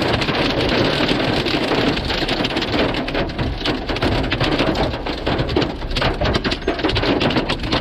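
Pea-sized hail pelting down, a dense, steady patter of countless small impacts.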